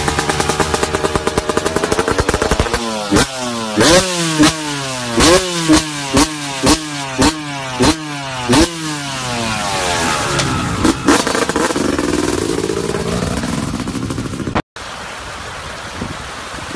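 Dirt bike engine idling, then revved in a run of quick, sharp blips about twice a second before easing back. Near the end it cuts suddenly to the steady rush of river water and wind.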